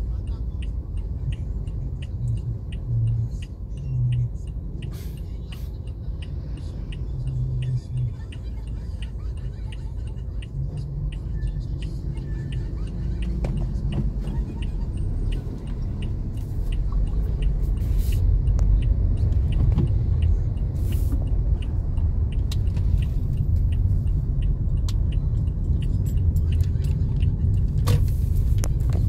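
Car cabin noise while driving: a steady low rumble of engine and tyres that grows louder about halfway through as the car picks up speed. A light, regular ticking sounds over the first dozen seconds.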